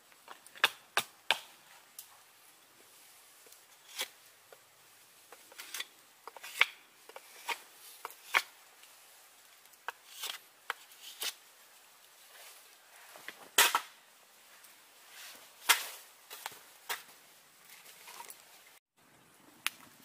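Knife carving and splitting a piece of wood by hand: irregular sharp cracks, snaps and knocks as the blade bites and the wood splits, with short quiet gaps between strokes.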